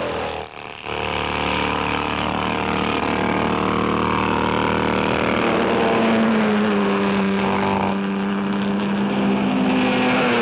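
Racing car engines running on a circuit, their pitch shifting up and down, steady rather than a single pass-by.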